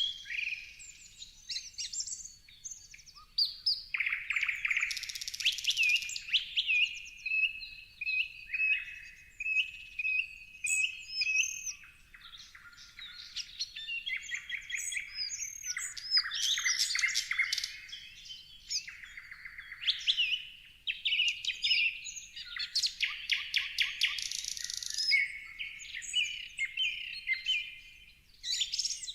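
A chorus of several songbirds singing and chirping at once, with quick trills, rapid chirp series and short rising and falling whistles that overlap without a break.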